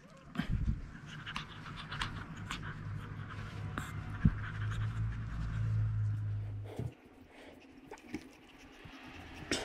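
Chihuahua panting close by, with rustling and small clicks from plush toys being handled. A low steady hum underneath cuts off suddenly about seven seconds in.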